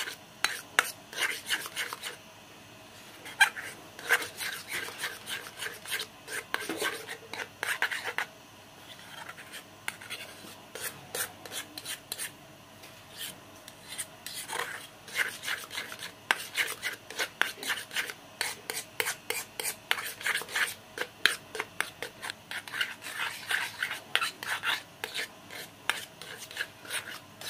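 A spoon scraping and stirring thick, sticky glutinous-rice-flour paste around a small metal pot as it cooks, in quick repeated strokes with a few short pauses.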